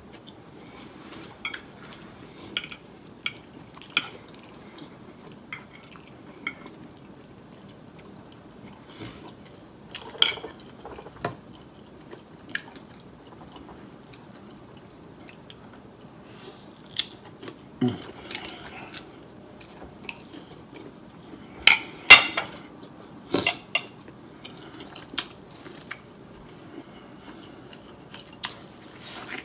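Metal fork clinking and scraping against a plate in scattered sharp clicks, with quieter chewing between. The loudest clinks come about three-quarters of the way through.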